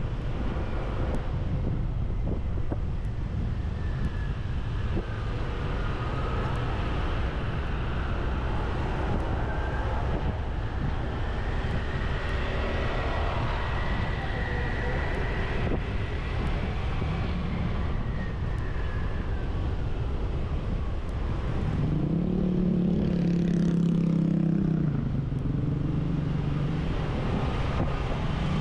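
Motorbike ride through street traffic: the steady rumble of engines and road noise, with other vehicles passing. About three-quarters of the way through, a louder steady-pitched hum comes in for about three seconds, then returns near the end.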